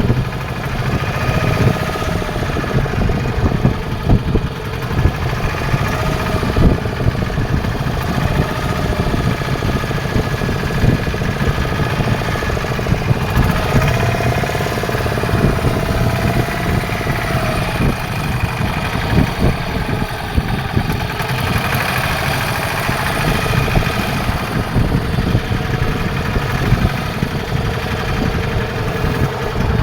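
Fishing boat's engine running steadily with a rapid chugging beat.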